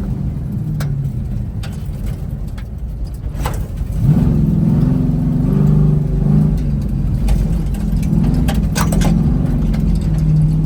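A vehicle engine running hard on a dirt track. It eases off, then accelerates again about four seconds in and holds high revs, with scattered sharp clicks over it.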